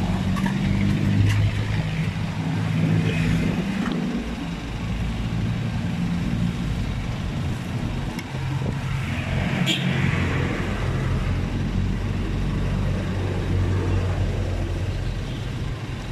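Motor vehicle engine running close by, a steady low hum that shifts up and down in pitch, over general road noise. A single sharp click about ten seconds in.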